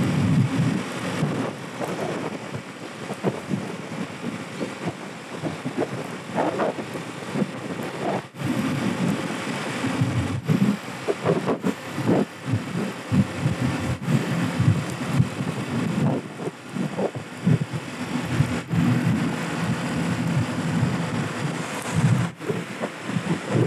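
Wind buffeting the microphone of a 50cc moped at riding speed, in uneven low gusts, with the small engine and tyre noise running underneath.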